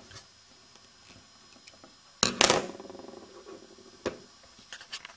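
Small clicks and knocks of a tool working the bolts on a solenoid valve's cover, with one louder clatter lasting about half a second a little over two seconds in, and a few more sharp clicks near the end.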